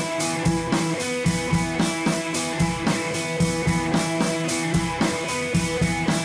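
Background music with a steady drum beat under held notes.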